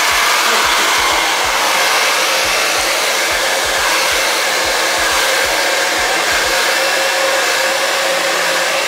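Infiniti Pro hair dryer running steadily while blow-drying hair, with soft low thumps coming and going during the first seven seconds or so.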